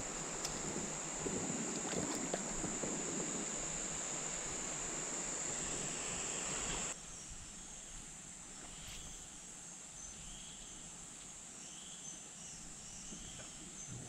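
Steady high-pitched insect drone over stream water, with splashing about one to three seconds in as a jungle perch is let go by hand in the shallows. About halfway the sound cuts to a quieter background in which a short chirp repeats about once a second.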